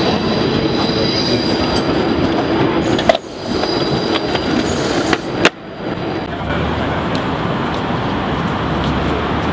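Tram running beside the platform, its wheels giving a steady high squealing whine over the rolling noise, broken by two sharp clicks about three and five and a half seconds in. After about six seconds the whine stops and a steadier rumbling noise follows.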